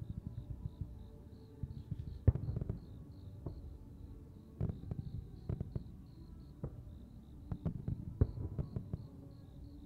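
Aerial fireworks going off in irregular bangs and crackles, the loudest about two seconds in and a quick cluster near the end, with crickets chirping steadily behind them.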